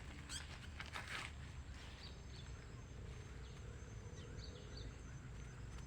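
Faint outdoor ambience: scattered short bird chirps over an evenly pulsing high insect trill, with a couple of brief rustles in the first second.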